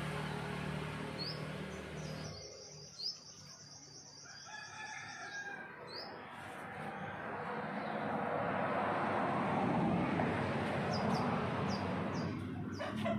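A rooster crowing once, a long call of about three seconds, with short high bird chirps before it and near the end. A broad rustling noise rises after the crow.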